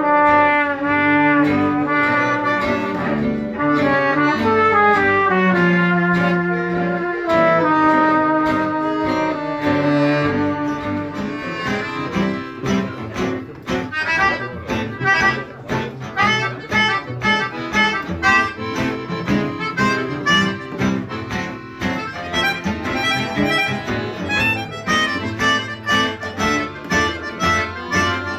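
Gypsy swing band playing live: trumpet, melodica and accordion carry held melody lines over acoustic guitars and a double bass. About twelve seconds in, the trumpet drops out and the guitars' steady chopped rhythm strum comes to the front under the melody.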